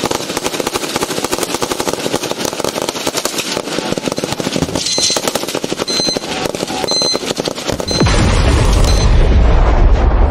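Rapid automatic gunfire, many shots a second without a break. About eight seconds in, a deep explosion booms and rumbles on.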